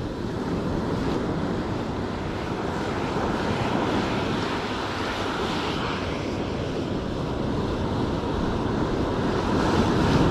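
Ocean surf washing onto the beach, with wind buffeting the microphone; the rush swells slightly toward the end.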